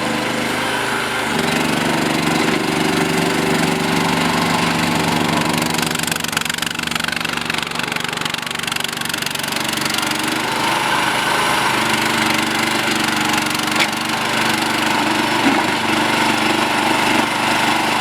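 Small skid steer loader's engine running, its speed shifting several times: up about a second in, easing through the middle and changing again past halfway. Two short clunks come near the end.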